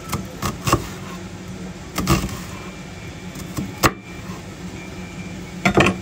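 Kitchen knife chopping on a cutting board: a handful of sharp, irregularly spaced knocks of the blade striking the board, over a steady low hum.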